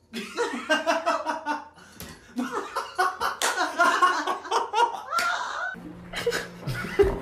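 A person laughing in repeated bursts, with music underneath. Near the end the sound cuts abruptly to a quieter bed with a low steady hum.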